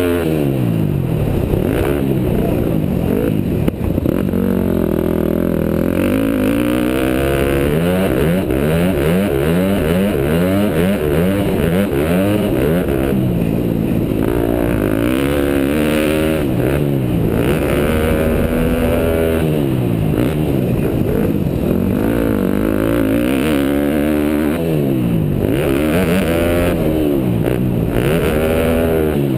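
KTM 250 SX-F motocross bike's single-cylinder four-stroke engine, revving hard and dropping back again and again as the bike accelerates down the straights and shuts off for turns and jumps, heard from a helmet-mounted camera.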